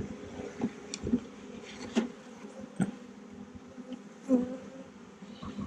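Honeybees buzzing, a steady hum, with several short clicks or knocks in between.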